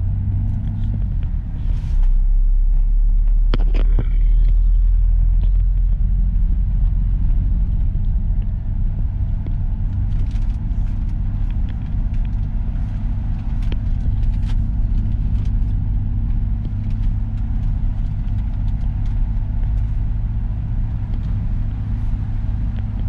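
Steady low rumble of a moving Mitsubishi Pajero, heard from inside the vehicle. A brief pitched sound comes about three and a half seconds in.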